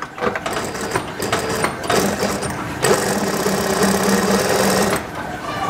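Industrial sewing machine running, stitching bias tape through a binder attachment as a test seam. It picks up speed and runs steadily and loudest from about three seconds in, then eases off near the end.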